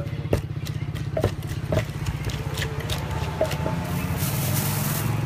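A small engine running steadily with a fast, even pulse, and scattered sharp clicks and knocks over it.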